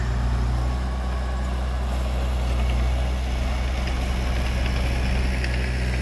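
Heavy diesel engine running steadily at low revs, with an even low hum and no revving.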